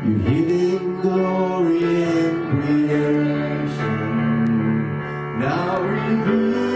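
A man singing a slow worship song over sustained electric keyboard chords, in long held notes with a new phrase starting about five and a half seconds in.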